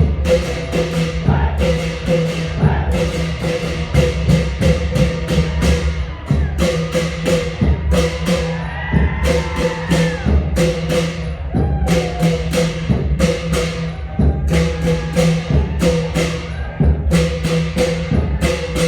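Thai klong yao long-drum ensemble playing an old-style rhythm: deep long drums under a fast, steady beat of sharp metallic strikes.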